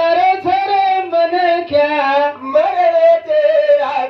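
A man singing a Banjara bhajan into a microphone in a high-pitched voice, holding long wavering notes in phrases with short breaks between them.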